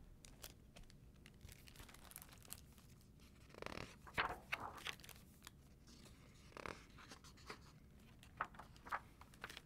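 Pages of a hardcover picture book being opened and turned by hand: soft paper rustles and small clicks, loudest about four seconds in.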